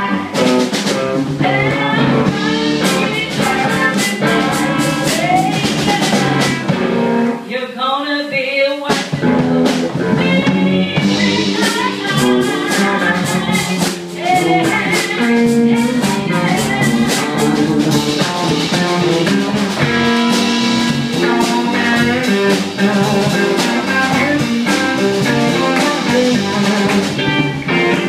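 Live blues band playing: drum kit, electric guitars and a woman singing into a microphone. The band stops briefly about eight seconds in, then comes back in.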